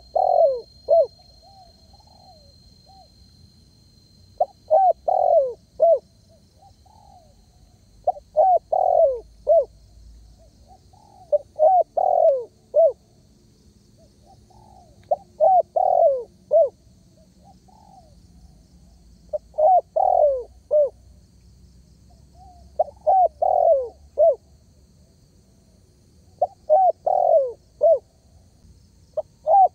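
Spotted dove cooing steadily. It repeats a phrase of several short coos about every three and a half to four seconds.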